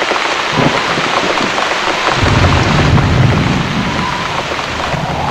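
Steady rain falling, with a low rumble of thunder that swells about two seconds in.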